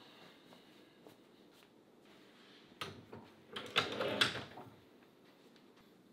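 A sharp knock nearly three seconds in, followed by about a second of clattering knocks, as of things being handled.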